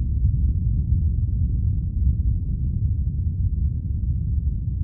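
Deep, steady earthquake rumble sound effect, a continuous low roar without breaks or distinct impacts.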